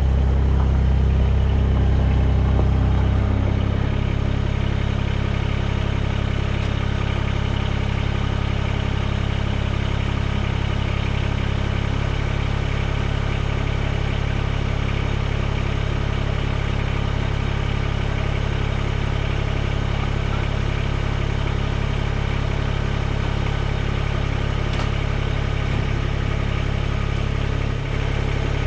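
Mahindra eMax 20S HST tractor's three-cylinder diesel engine running steadily. It is a little louder for the first few seconds, then settles to an even idle.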